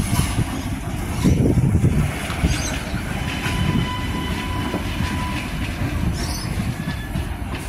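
Adelaide Metro 3000-class diesel railcar rumbling past as it slows into the platform, with a few clicks from the wheels over the rails. A thin, high squeal sounds for about two seconds in the middle.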